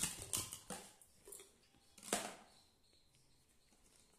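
Plastic stacking-toy rings clacking against each other and the toy's post as a toddler handles them: about five light, sharp knocks over the first two seconds.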